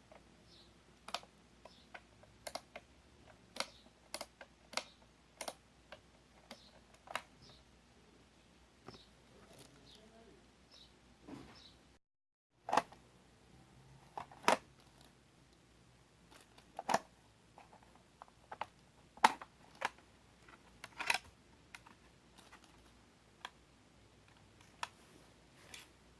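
Irregular light clicks and taps of small hard parts being handled, a sharp tick every second or so, with a short dropout to silence about twelve seconds in.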